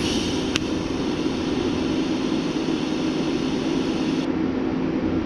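Electric welding arc running steadily as a small steel rod is welded onto a ratchet shifter's metal gate, a continuous hiss over a low hum. There is a brief tick about half a second in.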